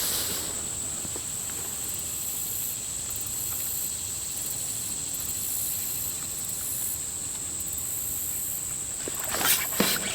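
Insects droning steadily in a high, even buzz, with a higher pulsing chorus that comes and goes every second or two. Near the end a few sharp, noisy bursts break in.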